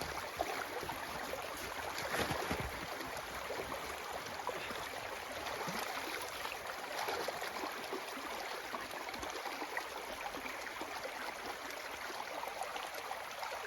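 Rain and snowmelt water running steadily along a dug ditch channel. A few soft knocks come about two seconds in, from a shovel digging into the channel bed.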